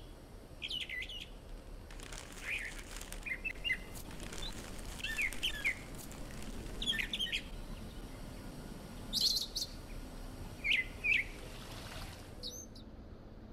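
Birds chirping in short, scattered phrases over a faint steady hiss, as a garden ambience track.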